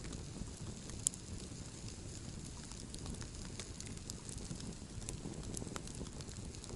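Wood campfire burning, crackling and popping at irregular intervals over a low steady rumble, with one sharper pop about a second in.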